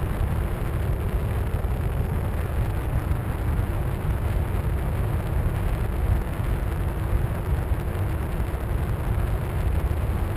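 Steady low wind rumble from airflow over the onboard camera of a Skywalker 1900 FPV plane in flight, with a faint steady hum underneath.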